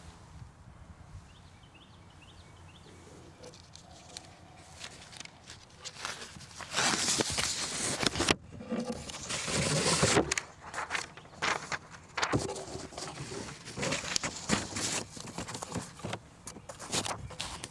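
Sheets of paper rustling and shuffling close to a lectern microphone, in irregular bursts starting about a third of the way in.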